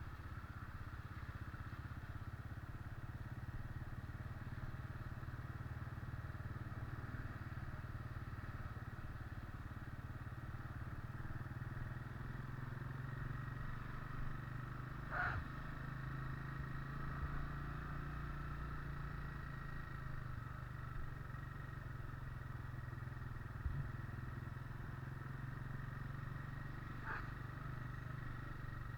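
Vehicle engine running steadily while on the move, with two short sharp sounds, one about halfway through and one near the end, and a brief low knock between them.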